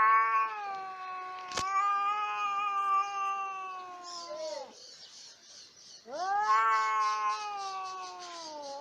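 Domestic cat caterwauling: two long, drawn-out yowls, each rising at the start and then holding a steady pitch, the first lasting about four and a half seconds and the second beginning about six seconds in. A sharp click sounds once, about a second and a half in. The yowls are the warning cry cats make when squaring up to fight.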